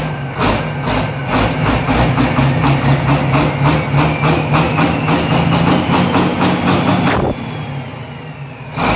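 Large diesel engine on a stand running, a steady low drone with a regular knock about twice a second. About seven seconds in, the knocking stops and the sound drops to a quieter drone.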